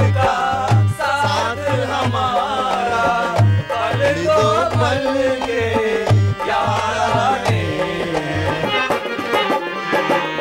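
Indian folk-style music: a dholak drum beats a quick steady rhythm under a wavering melody line. The drum drops out near the end.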